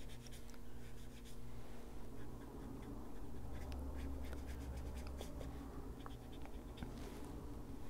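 Small handheld ink blending tool rubbing and dabbing colour onto coloring-book paper: a faint scratchy rubbing with many small ticks, over a low steady hum.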